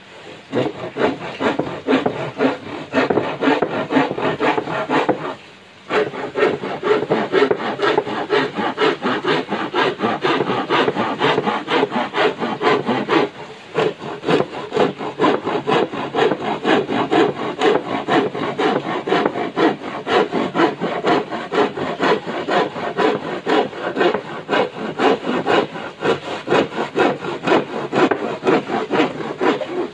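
Hand saw cutting a thin wooden board with quick, rhythmic back-and-forth strokes, the teeth rasping through the wood. The sawing stops briefly about five and a half seconds in, then carries on.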